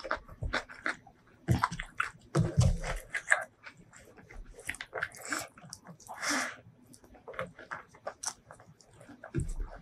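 Close-miked eating sounds: bare fingers squishing and pressing rice with spicy shrimp salad on a wooden board, then wet chewing and mouth clicks as a handful is eaten. Short sharp clicks and smacks run throughout, with a longer hissy sound about six seconds in.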